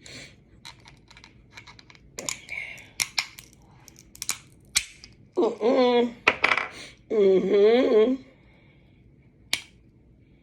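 Close-up mouth and eating sounds: a run of sharp smacks and clicks, then two long hums with wavering pitch, and one last click.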